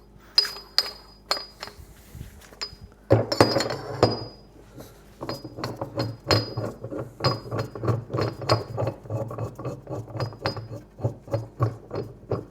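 Steel parts of a carrier-bearing puller clinking and clicking as its collars are adjusted. There is a louder rattling scrape about three seconds in, then a quick, uneven run of small metal clicks.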